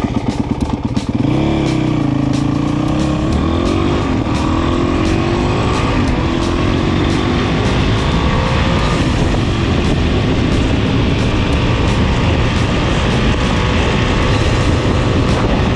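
Honda CRF450X single-cylinder four-stroke enduro bike pulling away on a gravel track. Its engine note climbs about a second in, dips briefly, rises slowly as it picks up speed, then holds steady while cruising.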